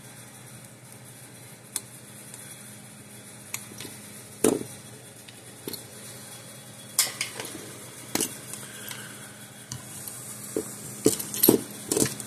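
Scattered light clinks and knocks of metal pliers and a circuit board being handled and set down on a wooden workbench, with a sharper knock about four seconds in and a quick run of clatter near the end, over a steady low hum.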